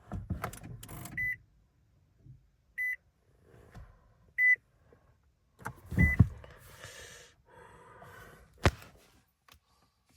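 A 2016 Nissan Altima S's warning chime sounding four short high beeps about one and a half seconds apart, among clicks and rustling from the controls being worked, with one sharp click near the end.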